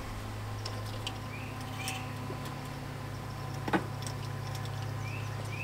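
Small solar-powered computer fan running with a steady low hum, just wired up and spinning. A light knock of handling against the wire cage comes about two-thirds through, and a few faint short high chirps sound over it.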